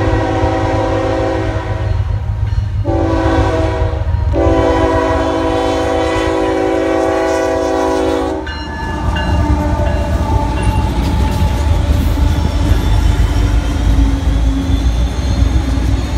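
Union Pacific diesel locomotive's horn sounding for the grade crossing: a blast that stops about a second and a half in, a short blast, then a long blast held about four seconds as the locomotive reaches the crossing. The intermodal train then rumbles through, its wheels clattering on the rails.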